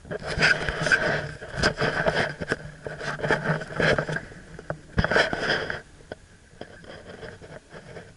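Camera handling noise: irregular rubbing and knocking as the camera is picked up and turned inside a car, loud for about six seconds, then dying down.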